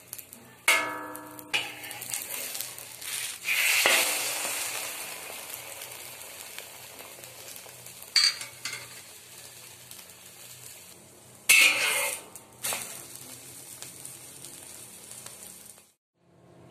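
Omelette frying in a hot pan, sizzling steadily, with a utensil clanking and scraping against the pan several times. About four seconds in the sizzling surges loudly and fades slowly, as the omelette is turned over onto the hot pan. The sound cuts off just before the end.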